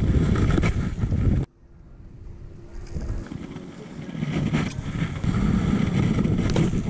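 Wind buffeting the microphone on an open boat, a low rumbling noise that cuts off sharply about a second and a half in and then builds back up.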